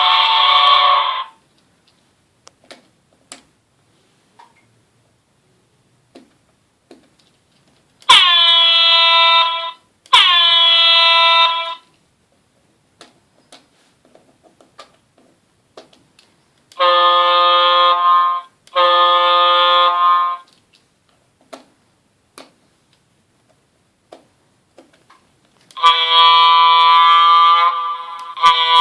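Electronic horn sound effects from an RC model horn module, played back one after another. A blast ends just after the start. Then comes a double honk about 8 seconds in, whose pitch dips slightly at the start, a second double honk in a different tone about 17 seconds in, and a longer two-part horn blast near the end. Between the horns there are short pauses with faint clicks.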